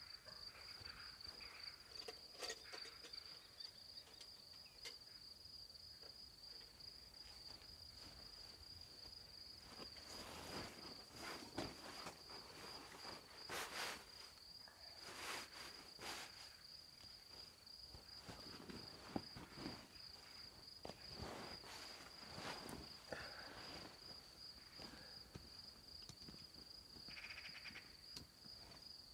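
Crickets chirping in a steady, unbroken high-pitched trill, with intermittent rustling and handling noises of camp work over it, busiest in the middle of the stretch.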